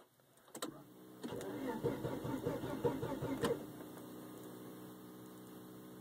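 A Volvo twin-cam engine cranking rhythmically on its starter for about two seconds without firing: a no-start. When the key is let go, the electric fuel pump keeps running with a faint steady hum, showing that the pump works.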